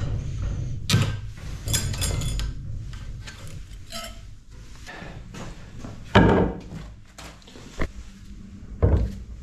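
Metal clicks and scrapes of a screwdriver prying an old-style circlip out of a tractor PTO shaft housing held in a steel vise, with short ringing metal clinks. Then a few heavy thuds, the loudest about six seconds in and another near the end.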